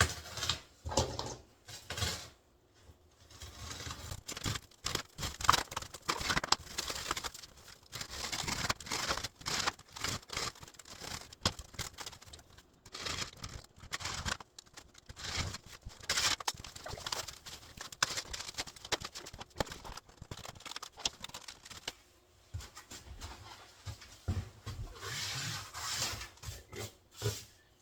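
Styrofoam and cardboard being cut and pulled out of a box by hand: irregular scraping, crackling and tearing strokes with short pauses between them.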